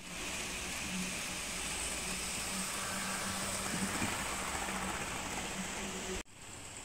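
Model train running along the layout's track: a steady electric-motor hum over the rush of wheels on the rails, a little louder around four seconds in as it passes closest. The sound drops away suddenly near the end.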